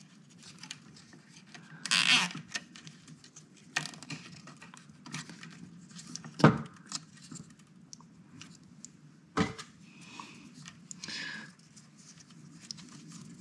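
Hands fastening plastic zip ties around a bundle of servo wires: scattered small clicks, rustles and brief scrapes, with a sharper click about halfway through.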